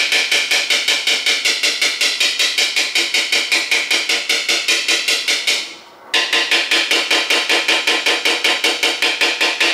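Body hammer tapping rapidly on a Harley-Davidson motorcycle fender with a dolly held behind the metal inside the fender, about six quick, even taps a second, with a short pause a little past halfway: knocking down high spots around a filled dent.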